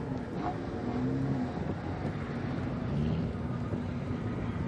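Off-road 4x4 engine running, its pitch rising and falling with the throttle.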